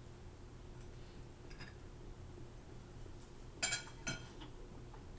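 Cutlery clinking and tapping against dinner plates as people eat: a few faint taps, then two sharp, ringing clinks about half a second apart, a little past the middle.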